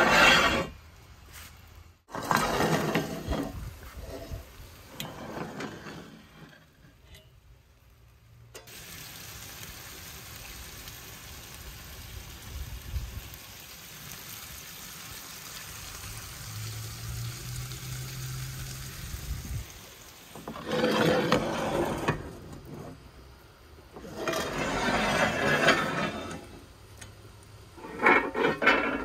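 Cast iron cookware handled on the brick floor of a wood-fired oven, with scraping and a sharp knock, then a steady sizzle of potato slices frying in a cast iron skillet for about ten seconds, then more loud scraping near the end.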